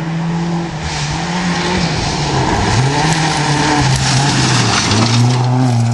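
Rally car approaching at speed on a gravel stage, its engine revs rising and falling several times and growing louder as it nears, with the rush of tyres on gravel.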